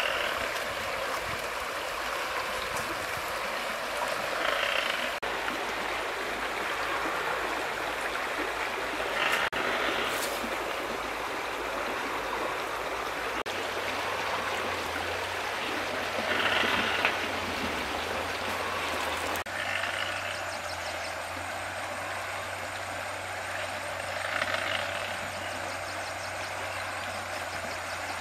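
Shallow river flowing over rocks: a steady rush of water, with short, higher sounds rising above it every few seconds.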